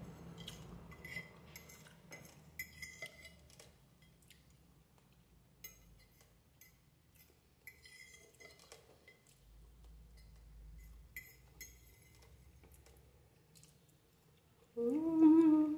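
Cutlery clinking and scraping against a plate during a meal of spaghetti with sausage, in scattered short clinks, some of them ringing. Near the end comes a brief vocal hum.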